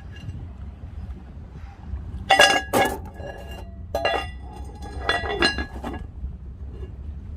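Several hard clinks of tableware, each ringing briefly: a pair about two seconds in, another about four seconds in, then a quick run of them around five to six seconds, over a steady low rumble of wind.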